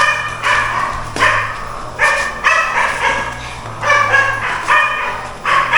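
A dog barking repeatedly, short sharp barks coming about twice a second.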